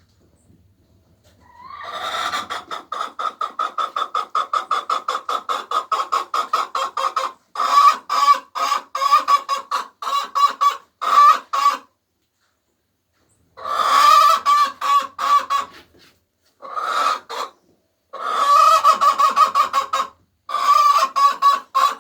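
Domestic hen clucking in a long steady run of evenly spaced clucks, about three a second, for roughly ten seconds, then in shorter runs broken by brief pauses.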